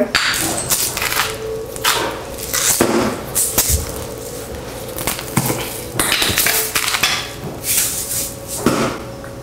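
Hand-held salt and pepper grinders twisted over a sandwich: short grinding bursts, on and off, about ten times.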